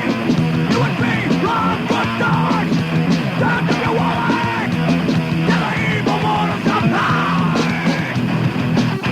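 Thrash metal band with a punk edge playing: distorted guitar, bass and drums under shouted, yelled vocals.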